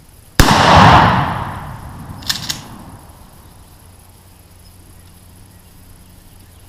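A single shotgun shot at a turkey about half a second in, its report dying away over the next two seconds, followed by two short clicks.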